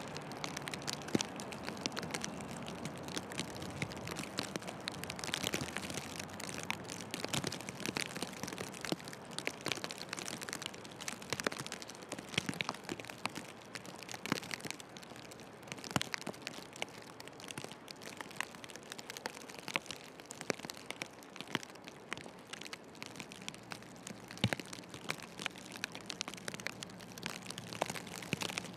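Snow crunching and crackling in a heavy snowfall: a dense, irregular patter of small crackles and clicks.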